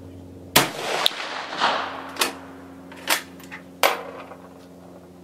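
A 6.5 mm Carcano M38 short rifle fires one shot with a cast-bullet load about half a second in, the report trailing off over the next half second. Several sharper, quieter clacks follow over the next few seconds, in keeping with the bolt being worked.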